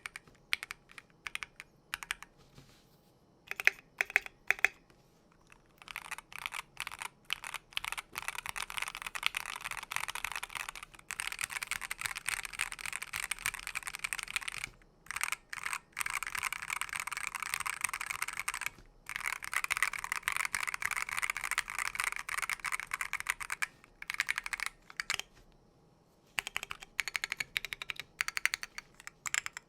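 Typing on a KBDfans KBD67v2 MkII mechanical keyboard with a brass plate, lubed NovelKeys Silk Yellow linear switches and AKKO World Tour Tokyo keycaps. A few scattered keystrokes and louder single strikes come first, then fast continuous typing in runs broken by short pauses, then scattered keystrokes again near the end.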